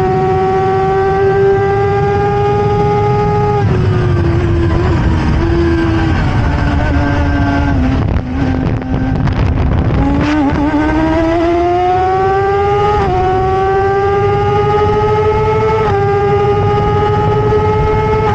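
BMW-powered Stohr WF1 race car's engine heard onboard, running at high revs and creeping higher, then dropping in steps as the driver brakes and downshifts for a slow corner, with a few sharp clicks at the slowest point. It then accelerates hard, its pitch climbing steadily and dipping briefly twice at upshifts.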